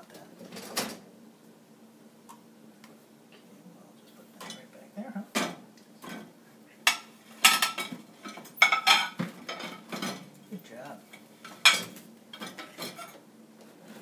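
A dishwasher's plastic cutlery basket and wire racks being handled, clinking and knocking in scattered bursts with quiet gaps between.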